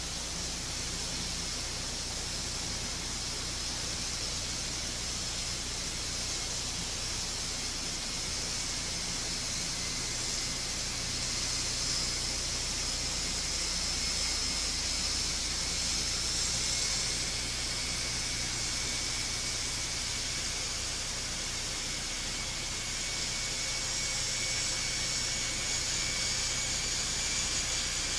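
Airbus A400M Atlas's four TP400 turboprop engines running as the aircraft taxis: a steady hiss with a high turbine whine, getting a little louder after about ten seconds.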